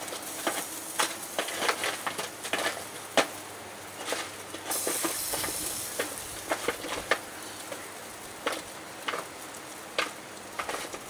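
A metal utensil clicking and scraping against a foil tray as roasting vegetables are turned on a gas barbecue, over a steady sizzle. About five seconds in there is a louder hiss lasting a second or so.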